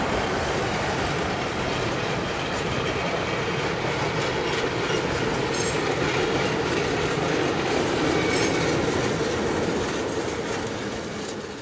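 Long works train of track-maintenance machines rolling slowly over a steel-girder river bridge: a steady rumble of wheels on rail with a faint high wheel squeal, dying away near the end as the last vehicle passes.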